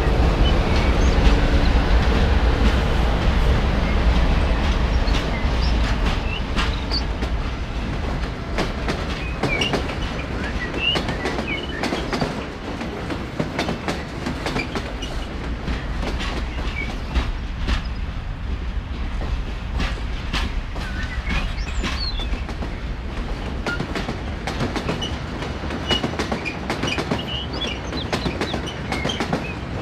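Diesel locomotive train sounds: a low engine rumble with a steady tone that eases off after about six seconds, and wheels clicking over rail joints.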